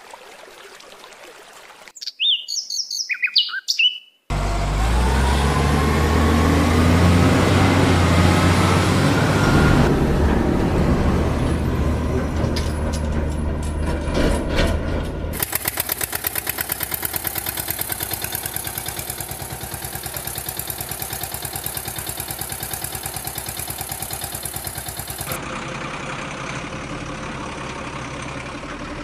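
Birds chirp briefly, then a heavy truck engine runs loudly and revs with a rising pitch. From about halfway it settles into a steadier, evenly pulsing run over a steady hiss.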